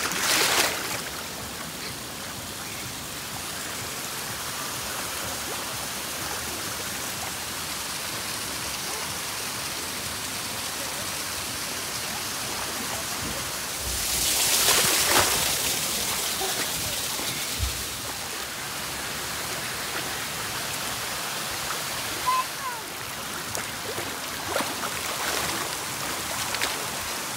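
Steady rush of running, splashing pool water. A splash about a second in as a small child slides down a slide into the water, a louder surge of splashing about halfway through, and a few short splashes near the end.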